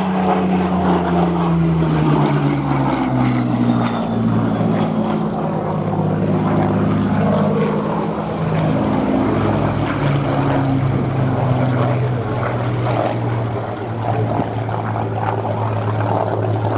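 Rolls-Royce Merlin V12 piston engines of a Supermarine Spitfire Mk II and a Hawker Hurricane IIC flying past. The engine note falls in pitch over the first few seconds as the aircraft pass, then runs steady and loud.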